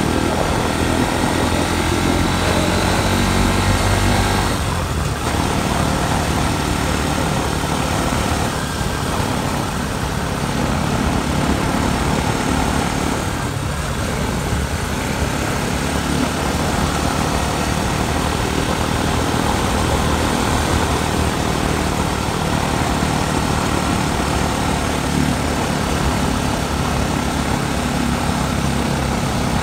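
Motorcycle engine running steadily, with a steady rushing noise over it.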